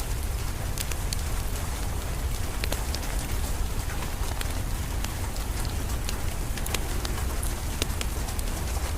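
Wood fire crackling, with scattered sharp pops, over steady rain and a constant low rumble.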